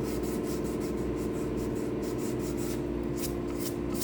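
Sandpaper rubbed by hand over a cured epoxy pour-fill coat on a guitar body, in quick even strokes about three a second, over a steady low hum.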